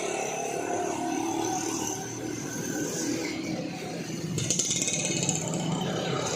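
Street traffic noise with motor vehicles running, motorcycles among them. From about four seconds in, a harsh hiss joins for around two seconds.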